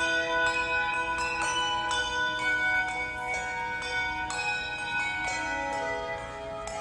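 A handbell ensemble playing a slow piece, English handbells struck in turn so that several notes ring and overlap, each dying away slowly.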